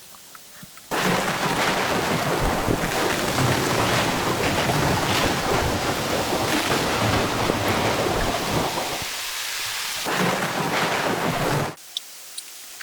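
Heavy rain with rumbling thunder, starting abruptly about a second in and cutting off suddenly near the end.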